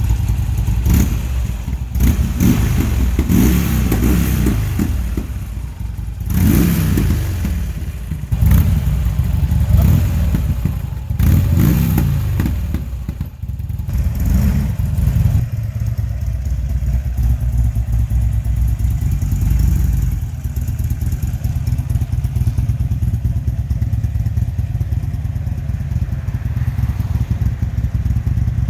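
Buell XB12S's air-cooled Thunderstorm V-twin through a Sebring aftermarket exhaust, blipped through about five throttle revs in the first half and then settling to a steady, lumpy idle.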